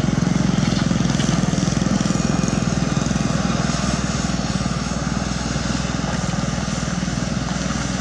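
Caterpillar 320D2 hydraulic excavator's diesel engine running steadily with a fast low pulse while the machine works its boom and bucket digging into loose limestone; the sound eases slightly about halfway through.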